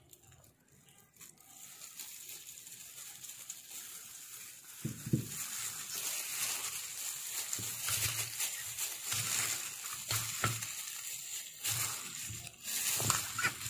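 A hand in a thin plastic glove tossing marinated raw chicken wings with flour in a steel bowl: irregular wet squelching and plastic crinkling, with soft knocks and thuds. It starts quiet and gets busier after a few seconds.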